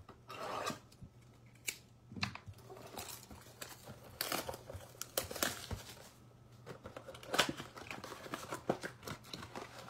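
Plastic wrap crinkling and a cardboard trading-card blaster box being torn open and handled, with irregular rustles and sharp crackles as the foil packs are pulled out of a 2022 Donruss baseball blaster.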